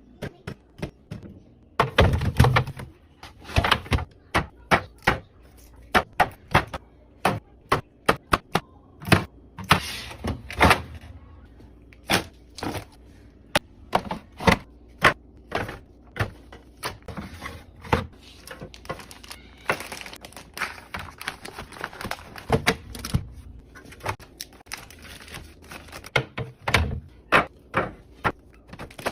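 Food containers and packages being handled and set down while restocking a fridge: a dense, irregular run of clicks, taps and thunks of plastic and packaging on shelves, with a few stretches of rustling packaging.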